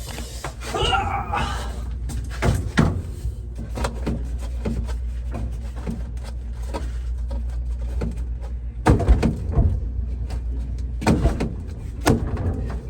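Repeated knocks and clicks of refrigerator parts being handled and fitted during a repair. There are a couple of louder knocks about nine and eleven seconds in, over a steady low hum.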